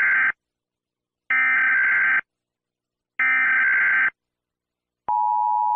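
Emergency Alert System SAME header: three identical bursts of buzzing digital data, each about a second long with a second's gap between them. About five seconds in, the steady two-tone EAS attention signal (853 and 960 Hz together) begins.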